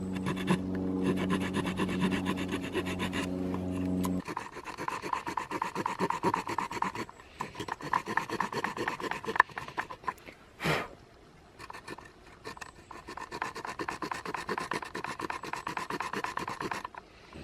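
Knife blade scraping and cutting into a wooden stick to carve notches, in rapid rasping strokes. A steady engine hum sits underneath for the first four seconds, and there is one short knock about ten seconds in.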